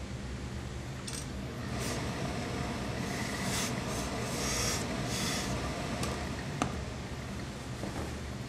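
Steam iron pressing a suit jacket seam: a series of short hisses of steam over a steady low hum, with one sharp click a little over halfway through.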